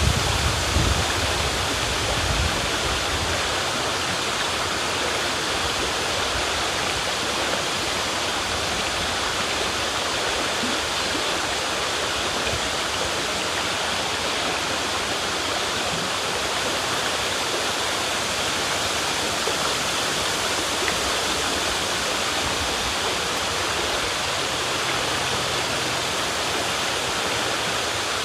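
River water rushing and splashing steadily, an even hiss of flowing water. A low rumble underneath dies away over the first couple of seconds.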